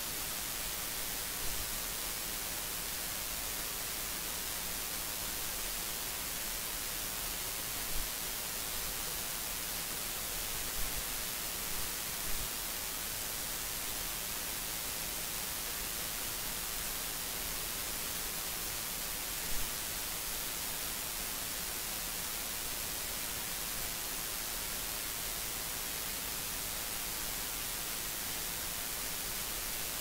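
Steady electronic hiss, strongest in the treble, from the recording's noise floor, with a few brief faint bumps scattered through it.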